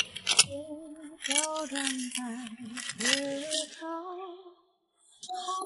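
Background song: a voice singing slow, drawn-out notes with a slight waver, breaking off briefly about four and a half seconds in.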